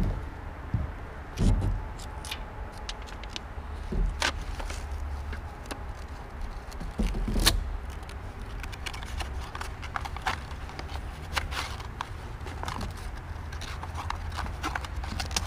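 Thin titanium stove pipe sheet being worked and rolled by gloved hands on a plywood deck: metallic scraping and crinkling with scattered sharp clicks, and a few thumps of the pipe against the boards about 1.5, 4 and 7.5 seconds in.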